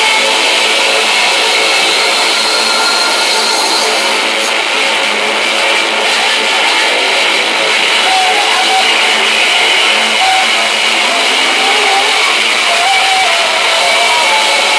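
Loud, distorted rock music with electric guitar playing over a PA, sounding thin with no bass.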